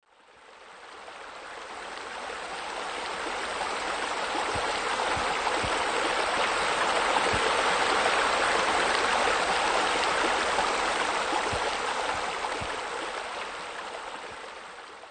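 Running water, a steady splashing rush like a stream or waterfall, fading in over the first few seconds and fading out near the end.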